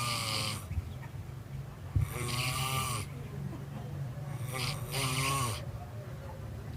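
Heavy snoring, like an old cow: three long snores, one every two seconds or so, each a drawn-out pitched rasp. A steady low hum runs underneath.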